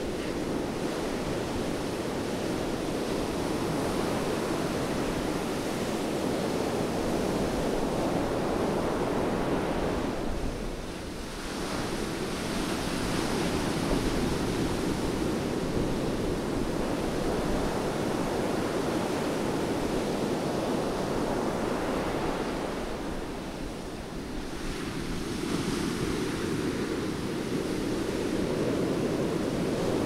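Rough surf: waves breaking and washing up a sandy beach in a continuous rush. It eases briefly twice, about a third of the way in and again after two-thirds, then swells back as the next breakers come in.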